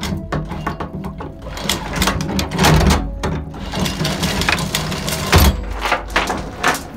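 Electric anchor windlass hauling in the chain, its motor running under repeated metallic clanks and knocks of the links coming aboard.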